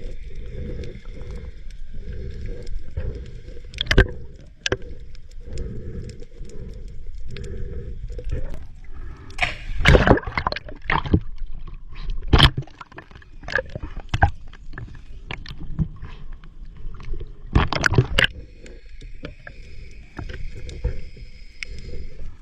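Underwater sound picked up by a diving camera: a steady low water rumble with scattered sharp clicks and knocks, and louder bursts about 10 and 18 seconds in. These are the unexplained underwater noises that startled the diver.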